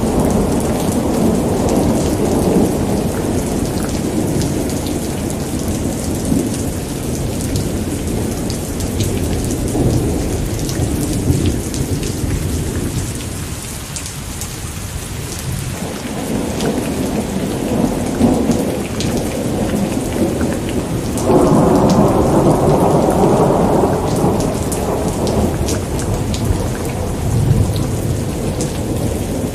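Steady heavy rain with rolling thunder. The rumble fades near the middle, then a louder roll of thunder comes in suddenly about two-thirds of the way through and dies away over a few seconds.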